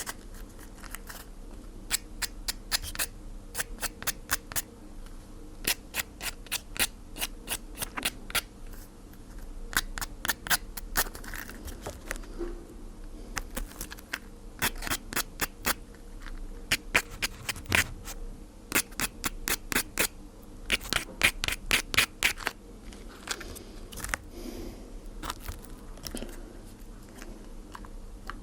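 Crackling and popping: rapid sharp clicks in irregular clusters, over a low steady hum.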